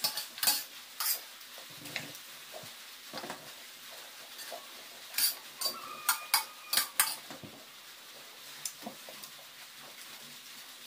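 Metal spoon clinking and scraping against a metal plate of fried rice while eating, in scattered sharp clicks, with a cluster about five to seven seconds in.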